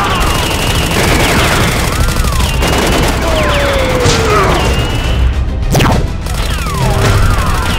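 An action-scene soundtrack: background music mixed with rapid gunfire sound effects. A long falling tone comes about three seconds in, and a sudden sweeping whoosh comes just before six seconds.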